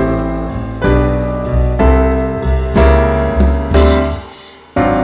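Piano music: a run of struck chords over low bass notes, each decaying, dying away about four seconds in before a new chord is struck just before the end.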